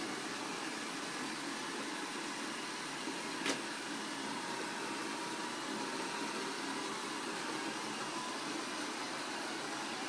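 Several iRobot Roomba robot vacuums running together on carpet: a steady whirring of their motors and brushes, with one sharp click about three and a half seconds in.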